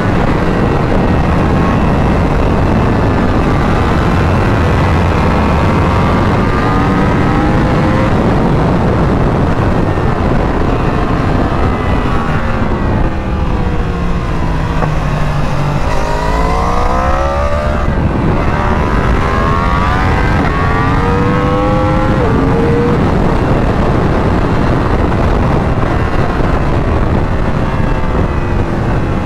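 2021 Yamaha R1's crossplane inline-four with a full Akrapovic Evolution exhaust, heard onboard at speed under heavy wind rush. About halfway through, the engine note falls as the bike slows into a corner, then climbs again in steps through upshifts as it accelerates out.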